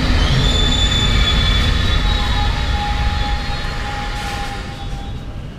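London Underground train moving alongside the platform: a loud running noise with a high whine and a lower held tone, slowly fading over the last few seconds as it pulls away.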